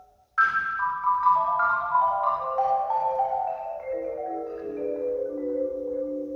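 Marimba played with four mallets: after a brief pause, a sudden loud attack about half a second in opens a line of notes stepping downward from the upper register, settling into held low chords near the end.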